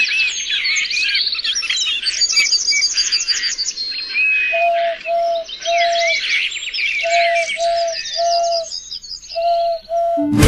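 Birdsong: many birds chirping and trilling, with a lower, steady whistled note repeated in short groups of two or three from about four and a half seconds in.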